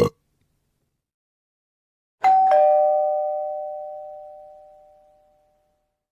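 Two-tone doorbell chime: a higher ding, then a lower dong a quarter second later, both ringing on and fading away over about three seconds.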